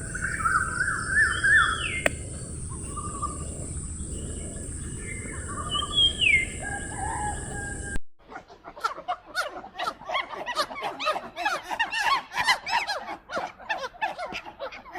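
Birds calling: scattered calls over a steady high hiss, then after a sudden cut about eight seconds in, a dense, rapid chorus of many birds chirping at once.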